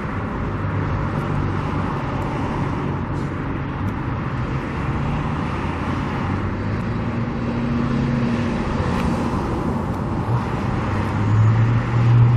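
Road traffic noise from steadily passing cars, with a low engine hum. One vehicle's engine grows louder near the end.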